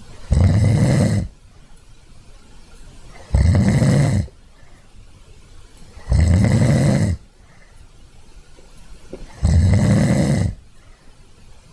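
Snoring: four loud snores about three seconds apart, each lasting about a second, with quiet breathing gaps between them.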